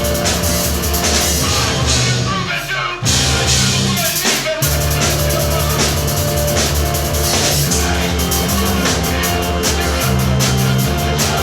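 Two-piece rock band playing live: keyboards holding heavy low sustained notes over a drum kit with double bass kick drums. The music briefly drops out twice, about three and four and a half seconds in, then comes back in.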